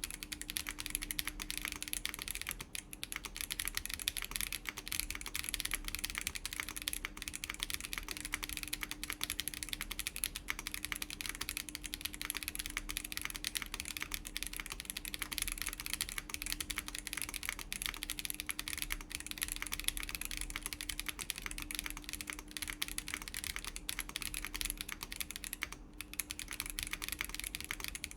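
Continuous typing on a Chilkey ND104 mechanical keyboard fitted with WS Breeze linear switches, an FR4 plate and blue PBT doubleshot keycaps: a dense, even stream of key presses with a couple of short pauses.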